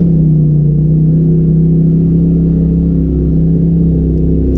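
Polaris RZR side-by-side's engine running at steady revs, holding one unchanging pitch.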